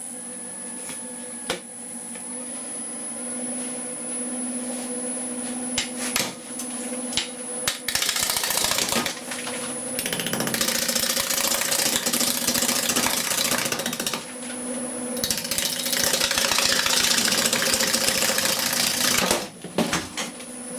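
Wood lathe running with a steady hum and a faint high whine while a turning gouge cuts a spinning green wood blank, with light knocks at first and then three long, loud passes of scraping and clatter as the tool rides over the cracked, soft wood.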